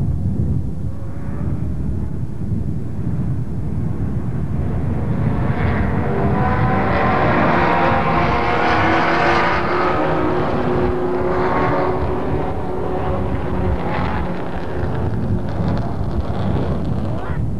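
Engines of a pack of sedan race cars running at speed past the grandstand, swelling to a peak as the field goes by about halfway through. Later, single cars' engines rise in pitch a few times as they accelerate.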